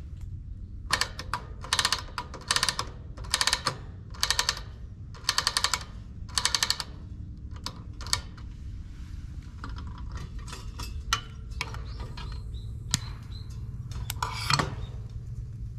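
Ratcheting mechanical clicking in about seven quick bursts, roughly one every second, then a few scattered clicks and knocks, over a steady low hum.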